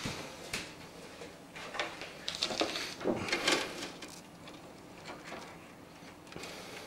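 Scattered light clicks, taps and rustling scrapes of hands handling computer parts and cables, busiest in the first half.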